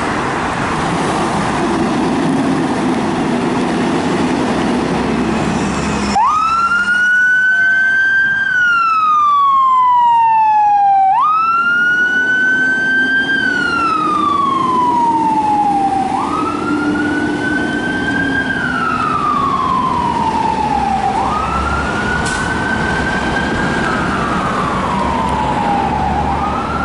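Fire engine's siren wailing, starting about six seconds in, over the truck's engine and street noise. Each cycle jumps up sharply, climbs a little, then slides slowly down, repeating about every five seconds.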